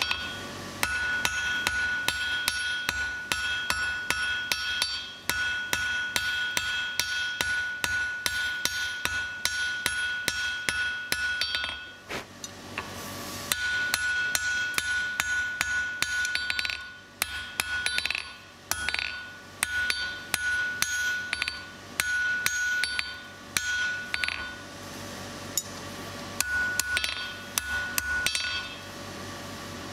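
Hand hammer striking a hot mild-steel bar on a steel anvil in quick runs of blows, several a second, the anvil ringing with a clear tone. The blows stop about twelve seconds in and start again a second or so later, in shorter runs.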